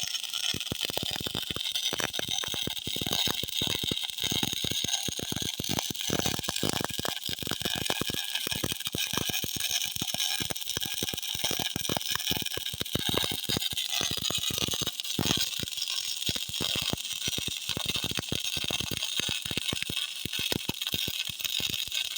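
MIG welding arc crackling steadily, a dense irregular sputter of clicks over a constant hiss.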